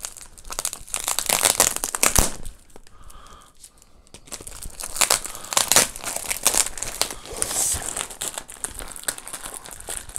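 Orange plastic mailer bag crinkling and rustling as it is cut and torn open by hand, in irregular crackling bursts, with a brief lull about three seconds in.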